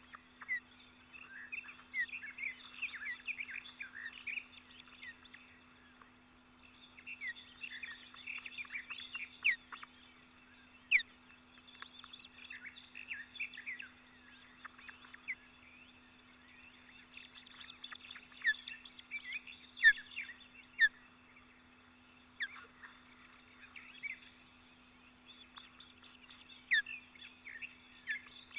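Songbirds chirping and singing in quick clusters of short calls, a few louder than the rest, over a steady low hum.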